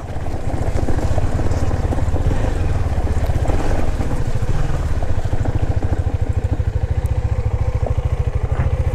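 KTM Duke 390's single-cylinder engine running steadily as the bike is ridden, an even rapid pulse.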